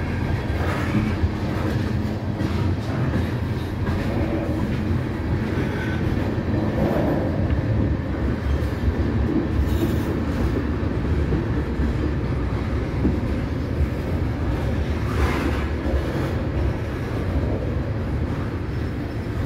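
Freight train of tank cars rolling past: a steady rumble of steel wheels on rail, with a brief sharper sound about halfway through and another near the three-quarter mark.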